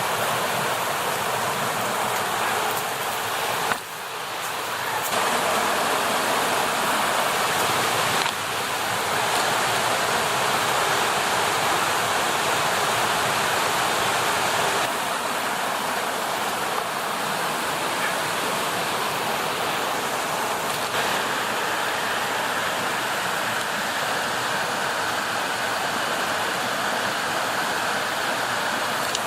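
Creek water rushing steadily over small cascades, with a few sudden small shifts in level and tone where the footage jumps from one spot to another.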